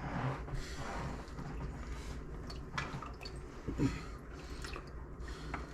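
Juices from a smoked pork butt dripping into a fat separator in scattered drips, with a few light clicks.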